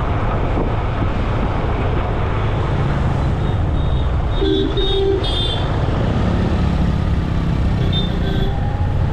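Road traffic noise on a moving ride: a steady rumble of wind and engines. Vehicle horns give a few short honks about halfway through and again near the end.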